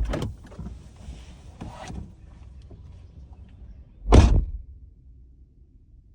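Getting out of a car: a clunk and rustling as the door opens and the driver climbs out, then the car door shut with one heavy thud about four seconds in, the loudest sound.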